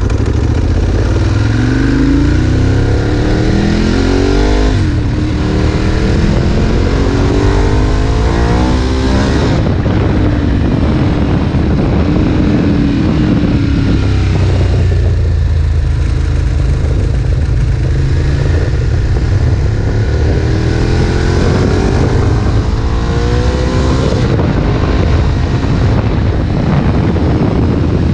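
Ducati 1098's 90-degree L-twin engine accelerating hard under load. Its pitch climbs through the revs again and again and drops sharply at each gear change or lift.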